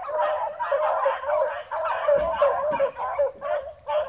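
A pack of beagles baying together while running a chase, many overlapping voices calling without a break, thinning a little near the end.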